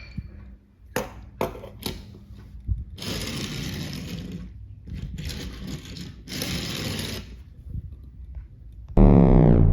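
Small toy cars being handled: a few sharp clicks and knocks, then three whirring, scraping bursts of about a second each. Near the end comes a loud sound effect whose pitch sweeps downward.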